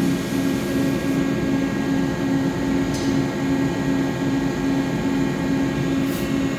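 Mori Seiki SL-154SY CNC lathe drilling a part: a steady machine hum with a tone that pulses a few times a second, and two brief ticks about three and six seconds in.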